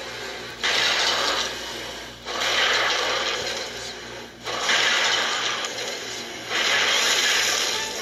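Cartoon sound effect of a car rattling and clanking along a rough country road, heard through a TV speaker, coming in noisy surges about every two seconds.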